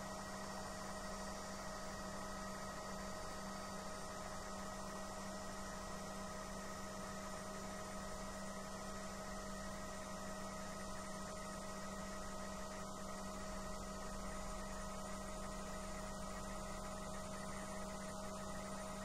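Bell 505 helicopter running on the ground, heard inside the cockpit as a steady hum with several steady tones and no change in pitch.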